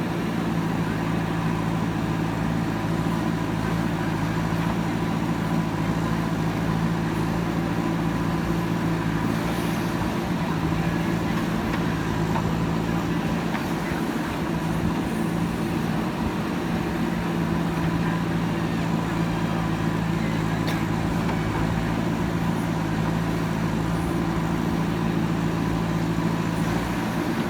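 Heavy diesel engine of a JCB backhoe loader running steadily while it digs and loads, its note wavering for a few seconds about halfway through as the load changes.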